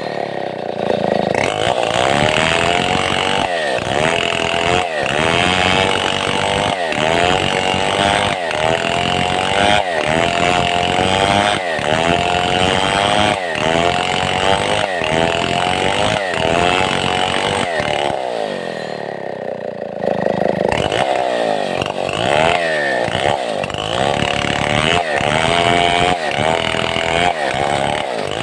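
Stihl 070 two-stroke chainsaw running at high revs under load while ripping a mahogany log into planks. Its pitch wavers with a regular pulse a little more than once a second. About eighteen seconds in it drops back briefly, then picks up again.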